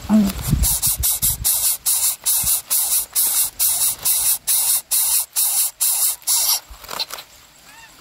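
Greater coucal nestlings hissing in a fast run of loud, rasping bursts, about two or three a second, which stops abruptly near the end; the chicks' begging noise as the parent feeds them.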